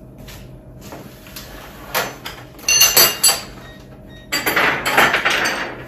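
Cardboard box being opened by hand and its packaging handled: a few short scrapes and rustles of cardboard, then a longer stretch of rustling near the end.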